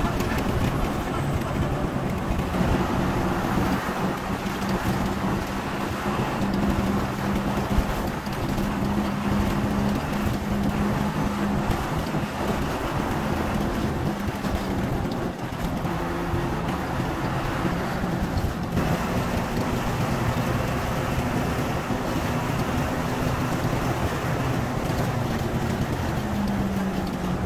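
Steady drone of a moving intercity coach bus, engine hum and road noise heard from inside the cabin near the windshield. The engine note shifts slightly in pitch every few seconds.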